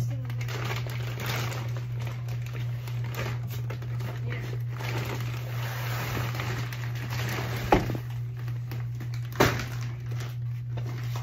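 Plastic crinkling and rustling as a bag is handled, with two sharp knocks, one near eight seconds in and another a couple of seconds later, over a steady low hum.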